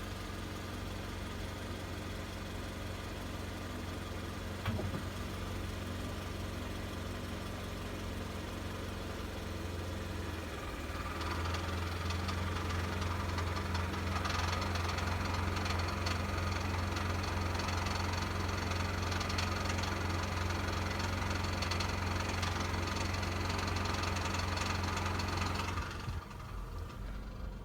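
20-series Toyota Vellfire engine idling steadily, with a single click about five seconds in. About eleven seconds in, a louder extra noise joins in over the engine and runs steadily until it stops abruptly about a second before the end. This is the abnormal noise the van makes with the A/C on and the transmission in Drive, which a dealer could not trace.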